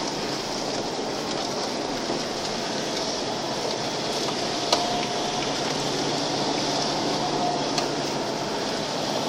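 Steady engine and road noise of a car, heard from inside the cabin while driving, with a couple of small knocks about halfway through and near the end.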